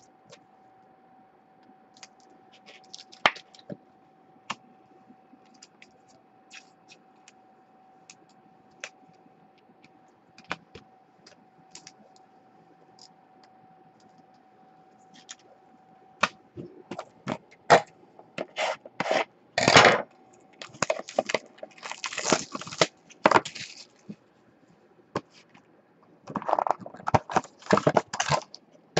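Trading cards and card packaging being handled, with scattered light clicks and scrapes at first over a faint steady tone. From about halfway through comes a dense run of scraping, crackling and tearing as a sealed box of Topps High Tek football cards is torn open.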